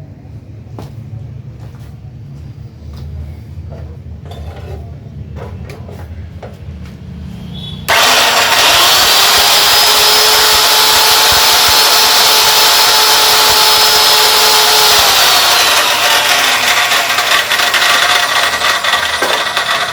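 INGCO 14-inch cut-off machine's motor switched on about eight seconds in, spinning up and running loudly at full speed with a steady high whine, then switched off about fifteen seconds in and winding down. Before it starts, a few light clicks and knocks.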